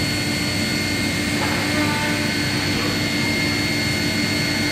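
Hass CNC mill running a machining program: a steady hum and noise from the machine, with a constant high whine from the spindle.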